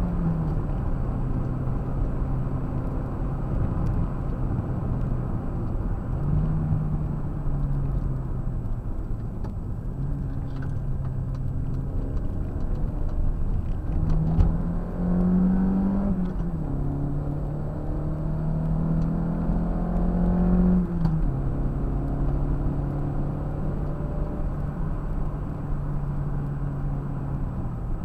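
Toyota MR2 AW11's mid-mounted four-cylinder engine heard from inside the cabin at speed, over road and wind rumble. The engine note holds steady between changes. About halfway through it climbs as the car accelerates, and it climbs again until a sudden drop about three quarters of the way through.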